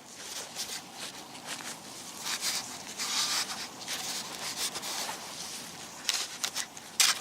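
Scratchy scraping and rustling of soil being dug and sifted in a small hole, made of many short irregular strokes, with a few sharper, louder scrapes near the end.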